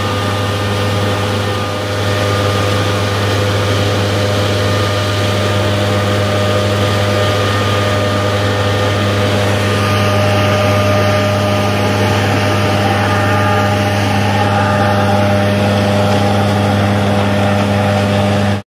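Engine running steadily at constant speed, a low hum with fixed whining tones above it, driving a rig that throws ice onto a sunflower crop to simulate hail. It cuts off abruptly just before the end.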